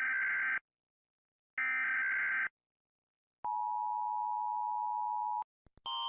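US Emergency Alert System tones: two short digital SAME header data bursts, each under a second, then a steady two-tone EAS attention signal that starts about three and a half seconds in, runs for about two seconds and cuts off. A couple of faint clicks follow near the end.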